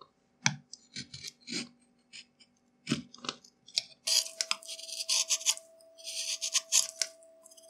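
A hand-pushed wood-carving gouge cutting into a wooden board and paring off shavings: a few short scrapes and taps at first, then from about four seconds in longer scraping cuts.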